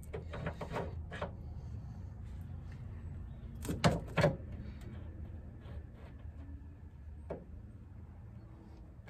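Metal clicks and clunks from a car's rear suspension trailing arm and its ball-joint track rod end being worked into place at the hub. A quick run of small clicks comes at the start, then two loud sharp knocks about four seconds in, over a steady low hum.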